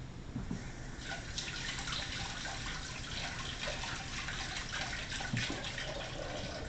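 Kitchen tap running, a steady stream of water that starts about a second in.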